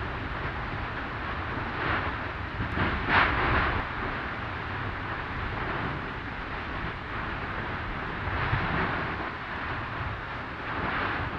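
Lava fountaining at an erupting volcanic vent: a steady low rumble under a rushing hiss, with several louder surges, the strongest about three seconds in.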